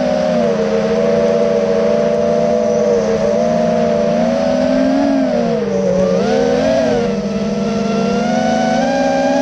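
FPV quadcopter's motors and propellers whining, the pitch dipping and rising gently with the throttle, with a deeper dip about six seconds in.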